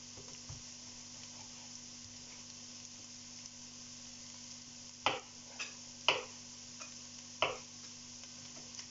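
Knife cutting monkfish on a plastic cutting board: a handful of sharp knocks about five seconds in, three of them loud, over a steady faint sizzle of vegetables frying in the pot.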